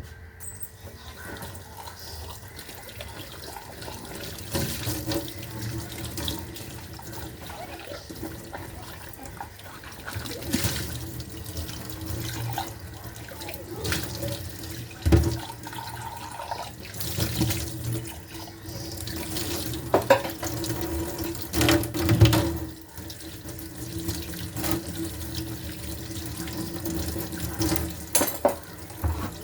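Water running from a tap, with a few knocks and clatters, like washing at a sink.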